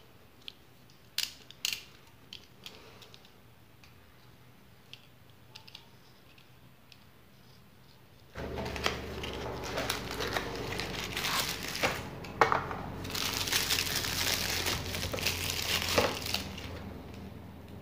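Clear plastic wrapping crinkling and rustling as epoxy putty is unwrapped by hand, starting about halfway in and easing off near the end. Before it, a few light clicks of plastic spoon-handle pieces being handled.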